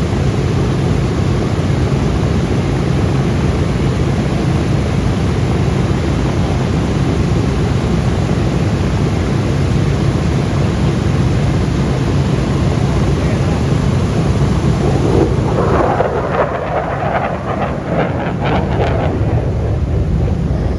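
Steady, loud roar of jet aircraft engines, deep and rumbling. It turns rougher and louder in the middle range for a few seconds about sixteen seconds in.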